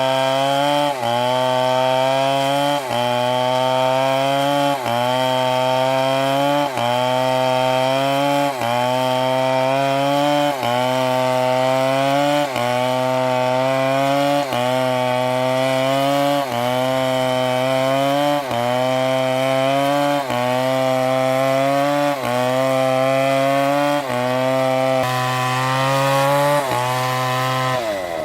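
Chainsaw engine running at high revs while cutting wood. Its note dips briefly and recovers about every two seconds, in an even rhythm.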